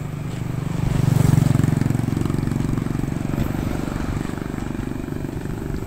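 Engine of a motor vehicle passing close by on the road, swelling to its loudest about a second in, then settling into a steady low drone.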